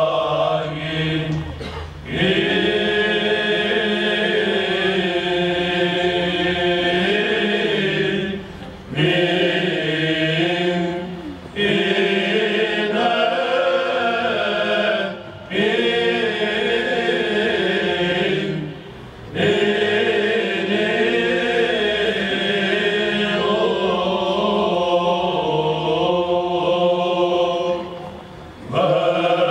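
Male Byzantine chant choir singing in plagal first mode, the melody carried over a steady low held drone (the ison). The singing comes in long phrases, broken by short breaks about every three to eight seconds.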